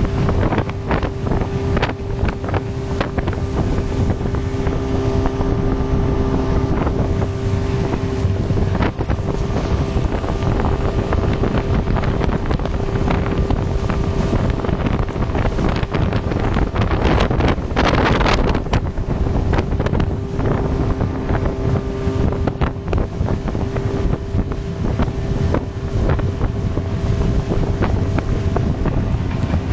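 Mercury outboard motor running steadily at speed, driving a rigid inflatable boat across the sea, with heavy wind buffeting the microphone and the hull knocking on the water. A louder rush of wind and spray comes a little past halfway.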